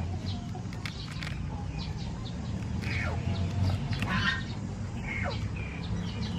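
Small kitchen knife cutting into a halved pineapple on a wooden board, with a few sharp cutting clicks. Behind it are a steady low hum and several short calls that fall in pitch, like birds.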